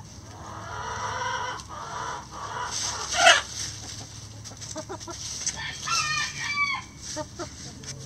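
Backyard chickens clucking as they scratch and peck through dry leaves and pine needles. A rooster crows in one long call near the start, a short loud squawk comes about three seconds in, and a run of short clucks follows about six seconds in.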